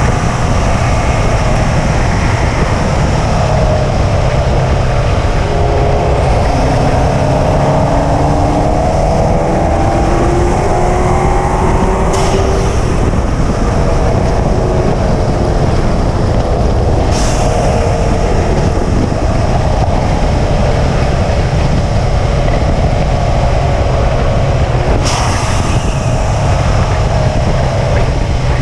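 2005 Subaru WRX wagon's turbocharged flat-four running at moderate track speed under a heavy, steady rumble. The engine note climbs over several seconds, then falls away and levels off, with three short sharp clicks spread through.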